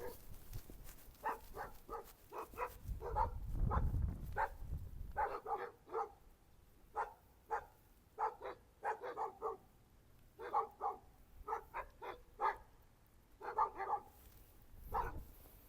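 A dog barking over and over in quick bouts of several short barks, with brief pauses between bouts. A low rumble swells around four seconds in and again near the end.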